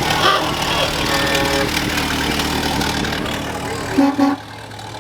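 Parade vehicles with engines idling, and a horn sounding: one held note about a second in, then two short honks close together about four seconds in.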